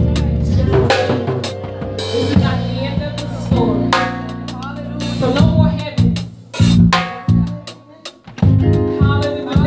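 Live band music: drum kit hits, with cymbal, snare and bass drum, over sustained chords and a bass line.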